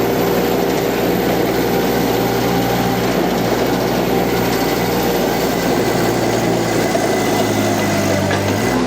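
Mini skid steer's three-cylinder Kubota D1105 diesel running under hydraulic load as the arms lift and the machine turns, the engine bogging down under the work. Its note shifts near the end.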